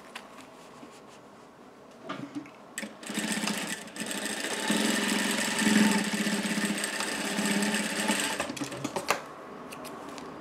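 Industrial single-needle sewing machine sewing a short seam. It starts about three seconds in, runs faster and louder from about four seconds, and stops at about eight and a half seconds. A few sharp handling clicks come just before it starts and just after it stops.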